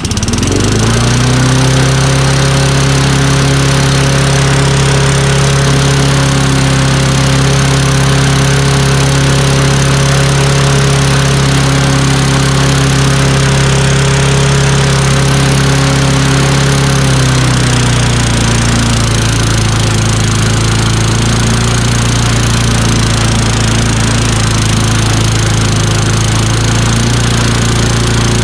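Craftsman push mower's Tecumseh engine coming up to speed right at the start, then running steadily; about 17 seconds in its speed drops a little and it settles at a slightly lower steady pitch. The owner reckons its speed needs adjusting because the governor spring is way too strong.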